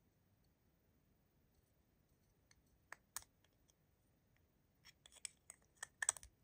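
Small hard-plastic clicks and taps from a mini Funko Bitty Pop figure and its clear plastic display case being handled: two sharp clicks about three seconds in, then a quick run of clicks near the end.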